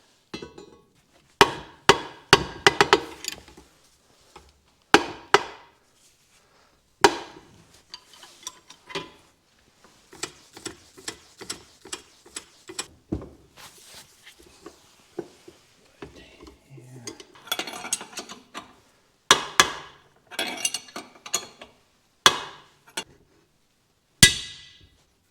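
Hammer blows driving a new wheel bearing into a BMW E46 rear trailing arm: sharp metal-on-metal strikes with a ringing tail. Heavy blows come in clusters near the start and again near the end, with a run of lighter, quicker taps in between.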